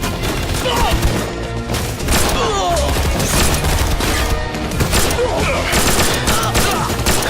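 Rapid gunfire, many shots in quick succession, over a film's background score.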